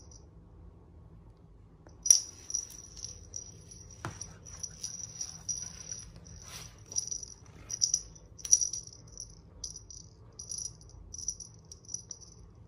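Small jingle bell on a cat toy jingling in short, irregular shakes as the toy is waved and swatted, starting about two seconds in.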